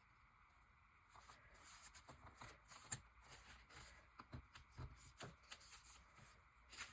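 Faint rustling and handling of paper, with scattered small ticks and taps, as stacked journal pages are worked with an awl to punch stitching holes.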